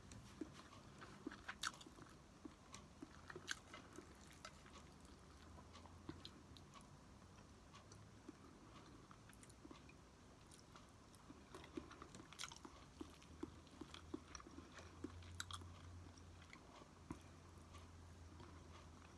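Faint close-up eating sounds: a person chewing, with scattered small clicks and crunches.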